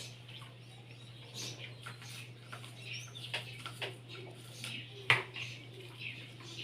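Scattered knocks and clatters of plastic feeding-bottle parts being handled and washed in a basin, the loudest knock about five seconds in, over a steady low hum.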